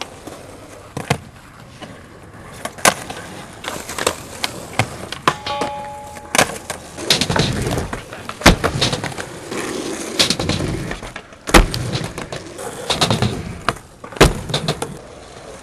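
Skateboards rolling on asphalt, with rough wheel noise between many sharp pops, board slaps and landings as tricks are done on a ledge and a wooden bank ramp. The loudest cracks come about eight, eleven and a half, and fourteen seconds in.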